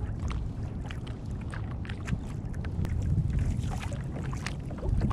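Water lapping against a kayak hull: irregular small slaps and ticks over a low wind rumble on the microphone.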